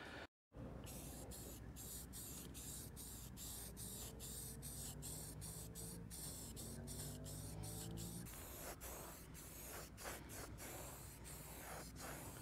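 Aerosol spray-paint can hissing faintly as paint is sprayed onto a metal frame.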